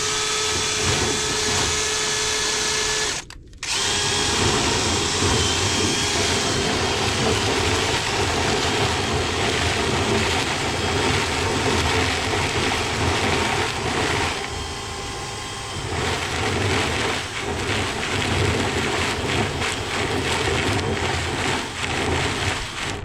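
Power drill running steadily, spinning the rotary brush rods used to scour lint out of a dryer vent pipe; it stops for a moment about three seconds in, then starts again.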